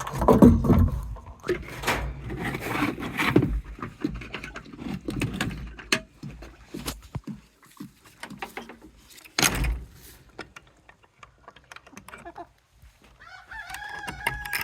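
Chickens clucking and scratching about, with a loud knock about two-thirds through, and a rooster crowing near the end.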